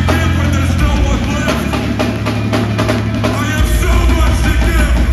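Metalcore band playing live at full volume: pounding drums, distorted guitars and bass, with a sung vocal. The low bass note shifts about a second in and again about three and a half seconds in.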